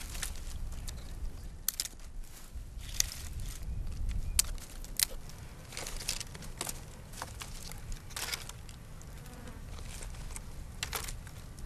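Dry sticks and branches snapping and crackling as they are broken and gathered by hand for firewood: irregular sharp cracks a second or more apart, with rustling of dry brush between them and a low steady rumble underneath.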